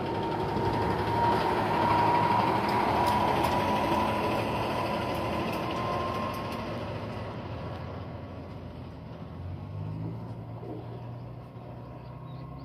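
A passing vehicle's noise, swelling over the first two seconds and then slowly fading, with a steady high whine running through it. A low engine hum comes in near the end.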